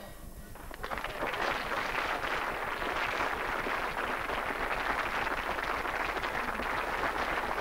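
Studio audience applauding, starting about a second in and holding steady.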